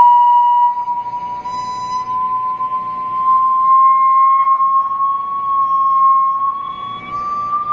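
A single pure electronic test tone, of the kind used to vibrate sand on a cymatics plate, sweeping slowly and steadily upward in pitch, with a faint low hum beneath.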